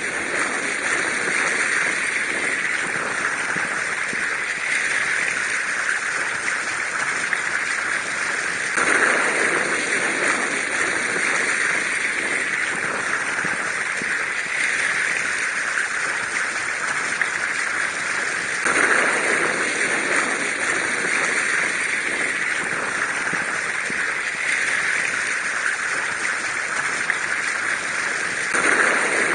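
Steady rushing, water-like noise, like a flowing stream, swelling slightly about every ten seconds.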